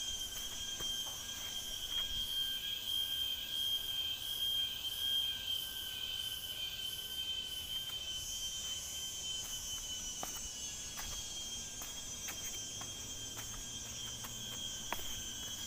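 Forest insects shrilling in one steady, continuous high-pitched tone, with footsteps on the trail ticking lightly here and there, more often from about ten seconds in.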